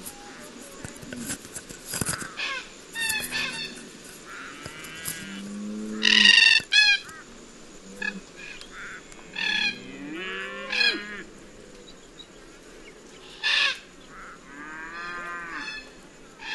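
Red-tailed black cockatoos calling repeatedly: a dozen or so short, harsh, rolling calls, with lower-pitched calls mixed among them. The loudest burst comes about six seconds in.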